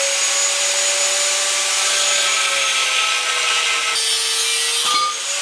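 Angle grinder working 2-inch steel: a steady, loud grinding hiss over the motor's whine, which sags in pitch about three seconds in and picks up again near the end as the load on the disc changes.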